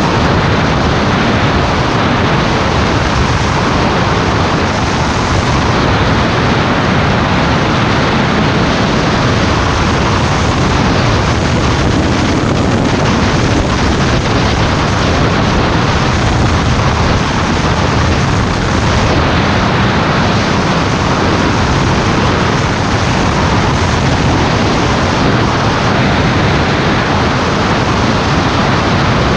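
Heavy wind buffeting the microphone of a camera on a moving motorcycle: a loud, steady rushing noise that drowns out everything else.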